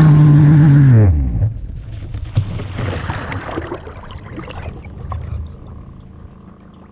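New CMB 91 two-stroke nitro marine engine on an RC hydroplane running at a steady high speed, then winding down and stopping about a second and a half in. The rest is water sloshing and splashing around the hull as the boat coasts.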